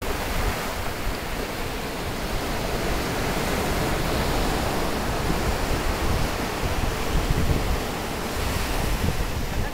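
Sea surf breaking and washing up the shallows of the beach: a steady rush of waves, with gusty low rumble underneath.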